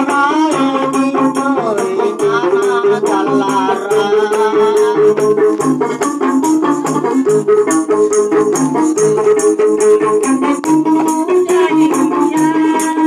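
Gambus music: a plucked gambus lute melody over hand-beaten frame drums keeping a fast, even beat with a rattling jingle, and a man singing into a microphone in the first few seconds.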